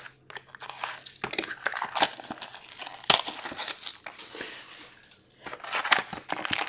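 Plastic wrapping on a sealed box of hockey cards crinkling and tearing as it is cut and pulled open, with irregular small crackles and clicks.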